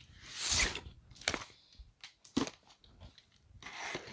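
Box cutter blade slicing through packing tape on a cardboard box: a scraping swipe about half a second in, a couple of sharp clicks, then more cutting and cardboard rustling near the end.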